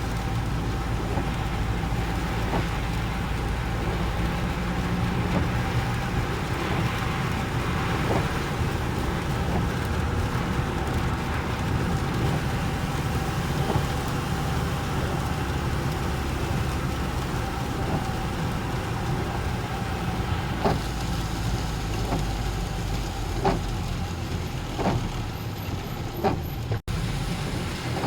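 Road traffic: vehicle engines running with a steady low rumble. Several short sharp knocks come in the last third, and the sound drops out for an instant near the end.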